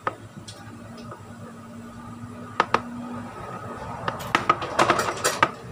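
Light clicks and taps of small throttle body parts being handled and fitted together during reassembly: two single clicks a little past halfway, then a quick flurry of clicks near the end.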